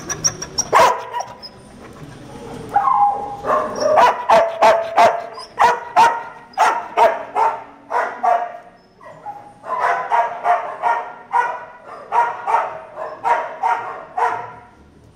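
Dogs in kennel runs barking over and over, about two barks a second, with a short lull about nine seconds in.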